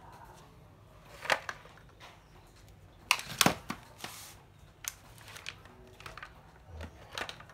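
A few sharp clicks and knocks from a used cordless circular saw being handled and turned over on cardboard, the loudest cluster about three seconds in; the saw's motor is not running.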